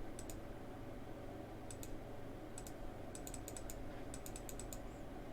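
Clicks and taps of a computer keyboard and mouse as values are entered into toolpath software: a few scattered pairs of clicks, then a quicker run of taps from about three seconds in, over a faint steady hum.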